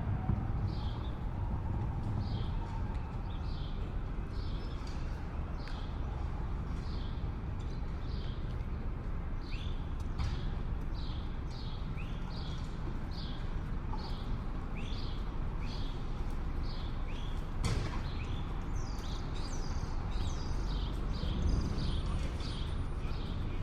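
City street ambience: a steady low traffic rumble with small birds chirping again and again over it. One sharp knock comes about eighteen seconds in.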